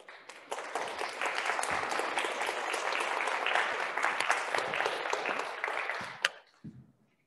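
Audience applauding, many hands clapping together. It swells up just after the start and stops about six seconds in.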